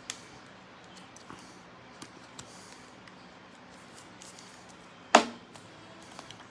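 Trading cards being handled at a tabletop: faint small clicks and rustles, with one sharp knock about five seconds in.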